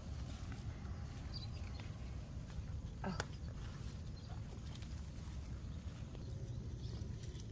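Bell pepper plant leaves rustling as a hand moves through them, with soft ticks, over a steady low rumble; one sharp click about three seconds in.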